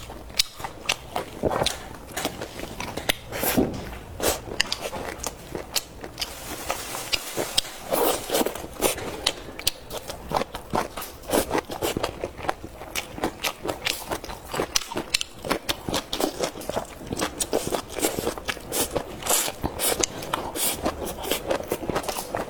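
A person eating close to the microphone: chewing and biting food, with many irregular short clicks and crunches.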